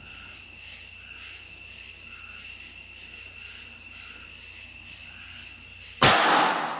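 Crickets chirping steadily in a faint pulsing chorus, then near the end a single loud shot from a Glock 19 Gen4 9mm pistol, fading away over most of a second.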